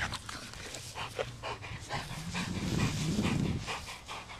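Black German Shepherd's quick sniffing and panting breaths, many short strokes in a row, as it noses around for a hidden ball. A louder, lower sound lasting about a second comes a little past halfway.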